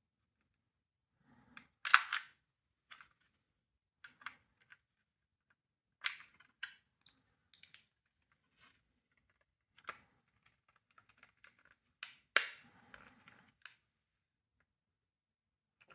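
Irregular sharp clicks, snaps and knocks of a hard plastic smoke detector housing being handled and taken apart. The loudest snaps come about two seconds in and again near twelve seconds in.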